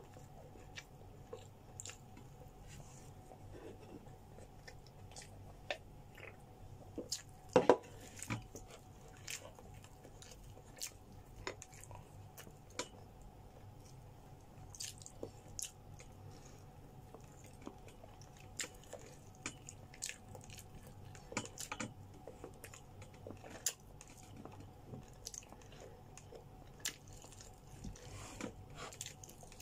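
Close-up eating sounds: chewing, biting and mouth clicks on grilled chicken, as short scattered noises, with one louder knock about eight seconds in. A faint steady hum runs underneath.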